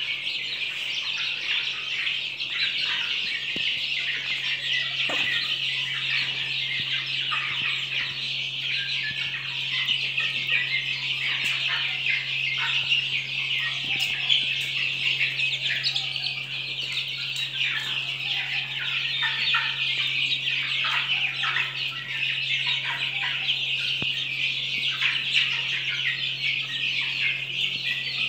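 A flock of desi chicken chicks peeping continuously as they feed: a dense chorus of overlapping high cheeps, many of them falling in pitch.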